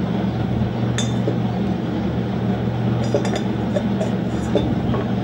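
Piston ring clinking against a Suzuki GS motorcycle's cylinder bore as it is pushed down and squared by hand to check its end gap: one sharp click about a second in and a cluster of small clinks around three seconds. A steady low hum runs underneath.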